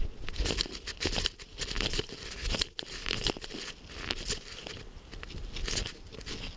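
Leafy brush rustling and scraping against the camera as someone pushes through an overgrown trail, with irregular crackles and crunches of footsteps and snapping twigs.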